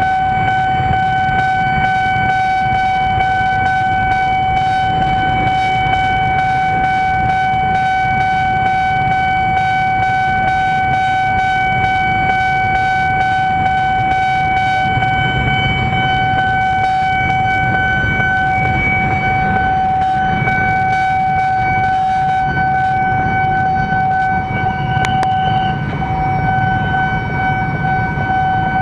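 Railway level-crossing warning alarm sounding a steady, unbroken electronic tone over a low rumble of waiting traffic, with rapid clicks through the first half. The tone changes about four seconds before the end.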